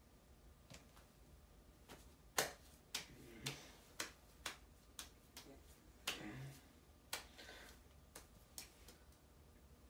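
A paper towel being handled, folded and pressed around a forearm: faint crinkles and a dozen or so short, sharp clicks at uneven spacing, starting about two seconds in.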